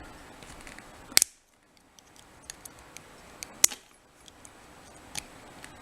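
Sharp metal clicks and ticks of small tools prying at the retaining clip on the back of a euro lock cylinder. Two loud clicks, about a second in and near the middle, with lighter ticks between and one more near the end.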